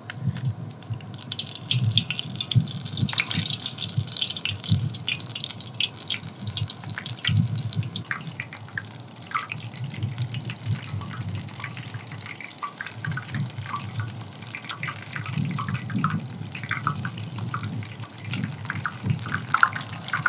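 Spoonfuls of razor clam fritter batter deep-frying in a pot of hot oil: a steady sizzle that starts about a second in, with many small pops and crackles.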